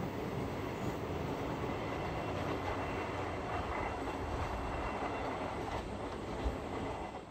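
Freight train's container wagons rolling away around a curve: steady running noise of wheels on rail with a faint high wheel squeal, easing slightly near the end.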